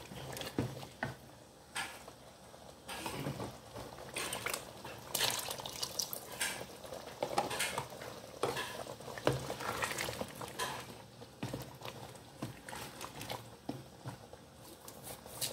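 Pot of goat curry in coconut milk simmering while a ladle stirs it, scraping and knocking irregularly against the pot over soft bubbling.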